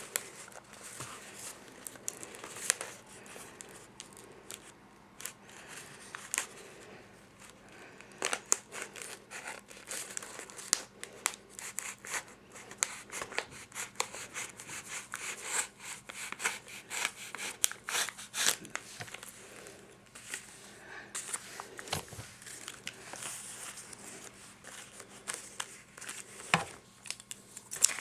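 Paper being handled and worked: irregular crinkling and rustling with many sharp clicks and snaps.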